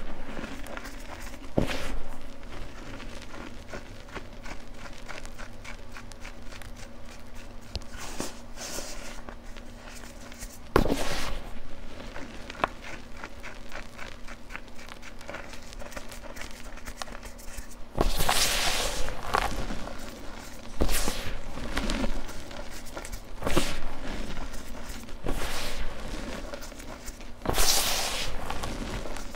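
Hands squeezing and crushing loose gym chalk powder and clumps in a tub: soft crunching and crackling, with louder crunches every couple of seconds in the second half.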